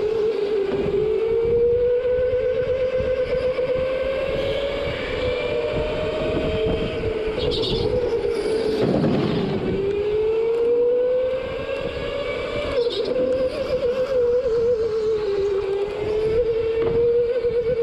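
Go-kart engine running hard, its pitch climbing and falling several times as the kart speeds up on the straights and slows for corners. About nine seconds in there is a brief rough rush of noise.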